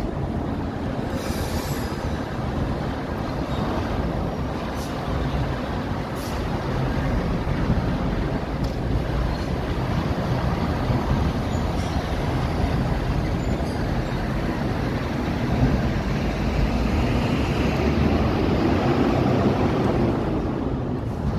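Steady low rumble of road traffic on the flyover overhead, with a few faint clicks.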